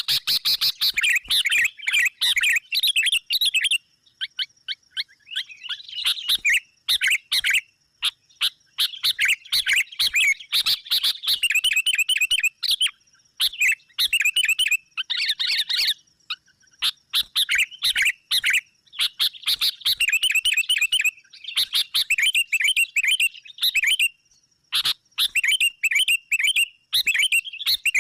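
Sooty-headed bulbuls chattering and calling in rapid, noisy bursts with short pauses between them: agitated calls of the kind played as a trapping lure to draw in rival bulbuls. A faint steady high tone runs behind the birds.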